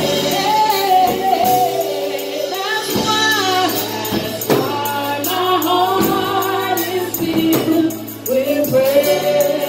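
Live gospel worship song: a woman singing lead with a second woman singing backing, over electric keyboard and a Rogers drum kit with cymbals.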